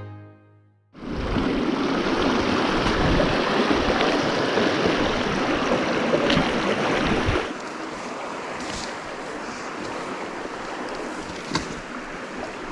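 Rushing water of a mountain brook trout stream, coming in about a second in as a loud, steady rush. It turns quieter and steadier from about seven and a half seconds in, with a few faint clicks.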